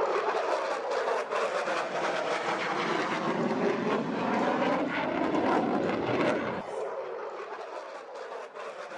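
Aircraft flying past at an air display, its engine noise loud with slowly shifting pitch bands, then dropping off sharply about two-thirds of the way in and continuing quieter.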